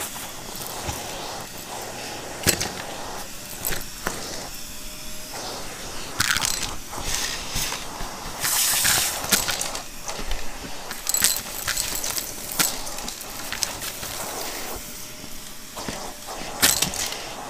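Shark Navigator vacuum running with the crevice tool on its wand, a steady suction hiss with sharp clicks and rattles of debris being sucked up, denser about halfway through.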